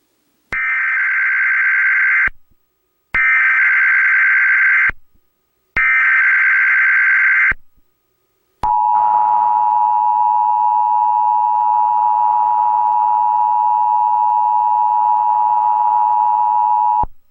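Emergency Alert System activation tones: three bursts of the warbling, screeching digital header data, each about two seconds long, then the EAS attention signal, a steady two-tone chord held for about eight seconds and cut off suddenly.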